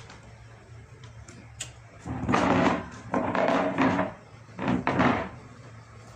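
White plastic monobloc chair dragged across the floor in three rough scraping pulls, with a pitched buzz in each, about two, three and four and a half seconds in; the middle pull is the longest.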